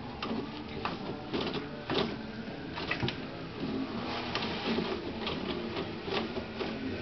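Toilet paper ripping and rustling as a cat tears it off the roll with its teeth and paws, in a string of irregular rips, with a faint steady hum underneath.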